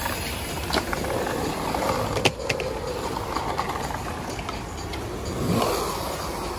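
BMX tyres rolling over concrete skatepark ramps: a rough hum that swells and fades as the bike rides the transitions, with sharp clacks about a second in and again a second or so later.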